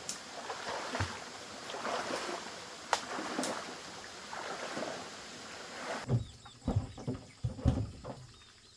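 Water sloshing and splashing in repeated swells, with a few sharp clicks. It breaks off about six seconds in, followed by several dull low thumps.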